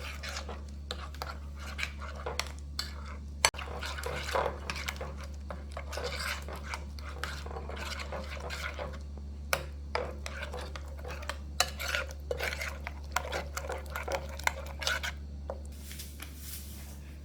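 A utensil stirring a wet garlic, ginger and pepper seasoning mix in a container, with frequent clinks and scrapes against the sides, over a steady low hum.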